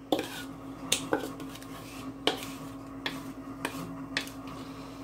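A utensil scraping and knocking against a mixing bowl as apple filling is scraped out into a cast iron pie pan: a handful of sharp, irregular clicks over a steady low hum.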